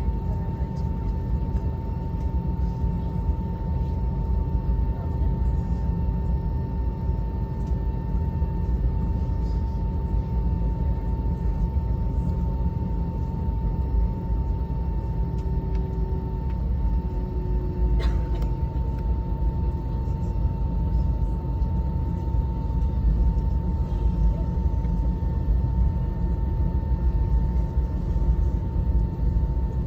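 Cabin noise of an Airbus A320-214 with CFM56 engines: a steady low rumble with a constant whine. A single sharp click about eighteen seconds in.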